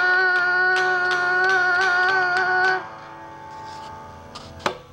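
A young child holding one long sung note, slightly wavering, over even light clicks about three a second. It stops about three seconds in, and a single sharp click comes near the end.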